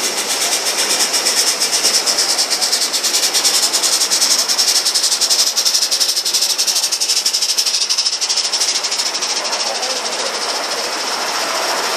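Gauge One live steam model locomotive running past with rapid exhaust chuffs over a steady hiss of steam. It grows louder as it approaches, is loudest around the middle, and fades as it moves away.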